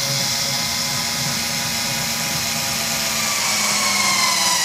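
Small electric screwdriver running steadily, driving a short screw into the back of a picture frame; its whine sags a little in pitch near the end.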